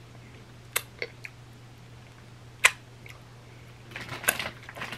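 Wet mouth clicks and lip smacks from licking dip off fingers: a few sharp single smacks, then a quicker run of sucking and smacking near the end, over a faint steady low hum.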